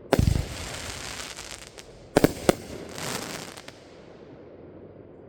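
Aerial fireworks going off: a heavy boom just after the start trailing into crackle, two sharp bangs in quick succession a little after two seconds, then a crackling burst that fades away.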